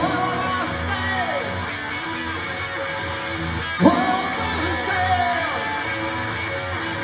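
Live rock song: strummed guitar with a man's voice singing long, sliding wordless phrases, one at the start and another about four seconds in.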